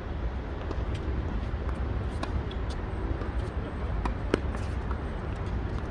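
Tennis ball struck by racquets during a doubles rally: several sharp pops, the loudest about four seconds in, over a steady low rumble.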